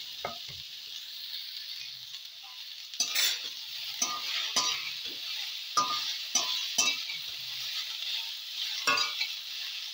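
Boiled radish frying in hot mustard oil in a kadai, sizzling steadily, while a metal spatula stirs it and scrapes against the pan in short strokes, about seven times from around three seconds in.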